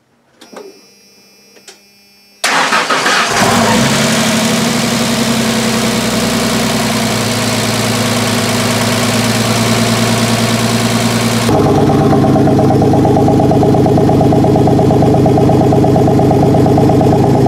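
Ford 4.9 L (300) inline-six in a 1996 F-150 cranking and catching quickly on its first start after a cylinder-head rebuild, then idling with a loud ticking from a collapsed lifter. Some two-thirds of the way through, the sound switches to the exhaust note at the tailpipes.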